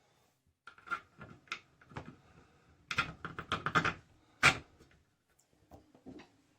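Small parts of a Moen shower valve being handled and fitted back together: a run of irregular clicks and light knocks, busiest about three seconds in, with one sharp click, the loudest, at about four and a half seconds.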